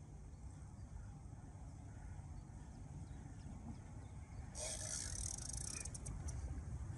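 Quiet outdoor sound over water: a low, fluctuating rumble of light wind on the microphone, with a brief hiss and a few small clicks about four and a half seconds in.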